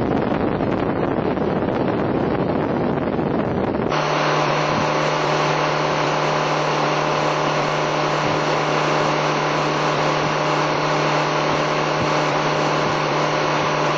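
Wind buffeting the microphone on a motorboat moving at speed, changing abruptly about four seconds in to the boat's engine running at a steady cruising speed with a constant hum over the rush of the wake.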